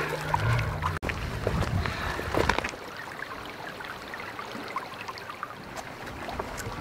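Water splashing and sloshing at a river's edge for the first couple of seconds, then a steady rush of outdoor water noise with faint light ticks.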